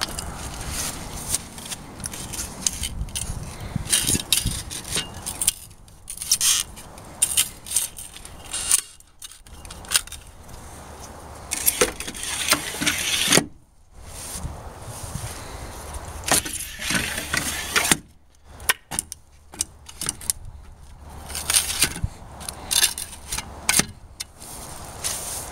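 Fold-down camper ladder being folded and unfolded by hand: its plastic step treads and metal rail clack and rattle in a run of sharp, irregular clicks, over a low steady rumble.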